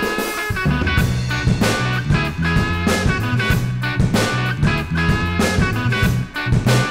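Background music with a steady beat; a bass line comes in about half a second in.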